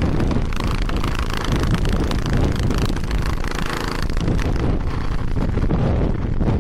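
Strong blizzard wind buffeting the microphone: a steady, loud rush of air with gusty low-end rumble.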